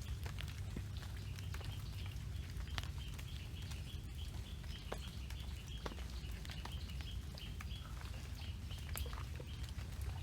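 Rain pattering in scattered taps while an animal in the woods calls in a long run of short high chirps, about three a second, over a steady low rumble.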